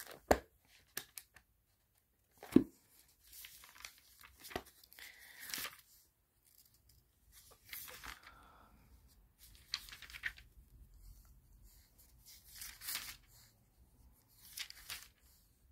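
Thin Bible pages being turned and leafed through: a series of paper rustles and swishes, with two sharp knocks in the first three seconds.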